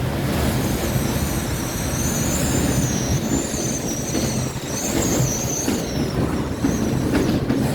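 Violent storm wind against the building: a steady rush with a deep rumble, and a high whistle that wavers up and down in pitch through the middle.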